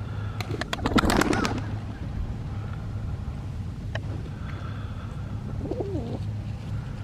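A bird calling, with a short, loud rattling burst of clicks about a second in, over a steady low rumble.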